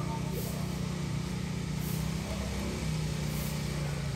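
A steady low motor hum that drops slightly in pitch about three seconds in.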